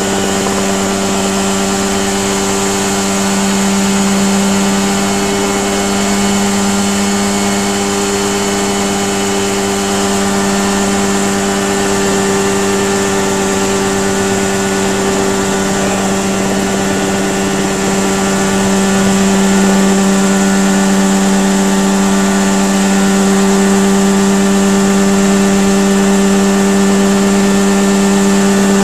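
Mosquito ultralight helicopter's engine and rotor running steadily in a hover, heard from the pilot's seat: a loud, even drone that gets a little louder about two-thirds of the way through.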